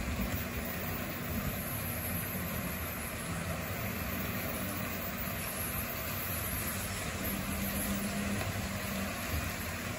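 Motorized HO-scale model railroad turntable turning slowly, its small electric motor giving a steady low hum.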